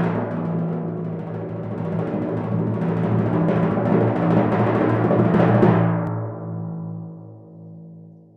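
Timpani roll sound effect that swells slightly louder, breaks off about six seconds in, and then rings away and fades.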